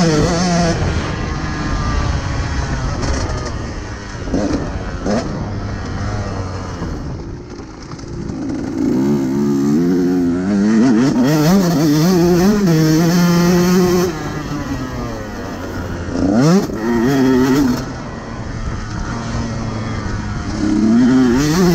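KTM 150 SX two-stroke motocross bike engine being ridden, revving up and down over and over, with quick climbs in pitch followed by drops and spells held at high revs.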